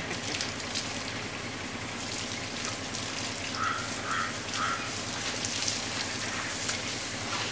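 Water from a hose running and splashing steadily onto a wet concrete floor and into a bucket.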